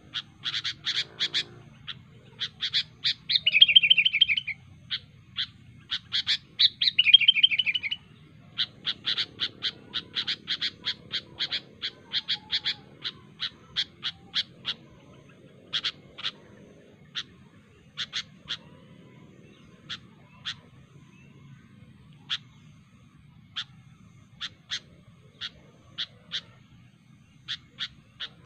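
Sooty-headed bulbul (kutilang) calling. Quick runs of sharp chips are broken by two louder warbled phrases in the first eight seconds. After that the chips thin out to single notes a second or more apart.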